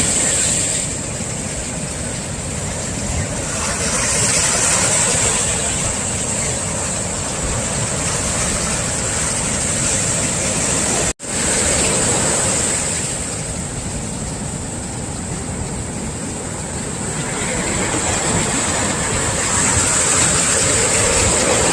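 Large swell waves breaking on the shore and washing back, the rush of surf rising and falling several times. The sound cuts out for an instant about halfway through.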